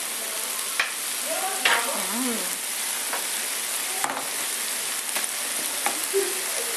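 Yuca gnocchi in a mushroom and tomato sauce sizzling steadily in a frying pan, while a utensil stirs them and knocks against the pan several times.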